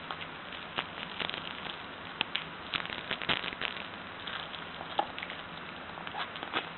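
Scattered, irregular light clicks and crackles of small objects being handled, at an uneven rate of a few per second.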